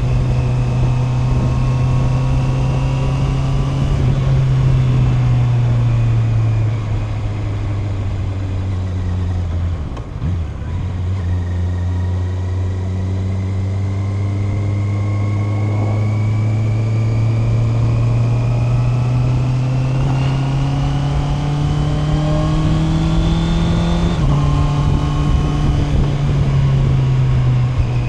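Honda CB650R's inline-four engine running under way. The revs fall for a few seconds, then, after a gear change about ten seconds in, they build slowly in one long pull until a quick upshift drops them suddenly about 24 seconds in.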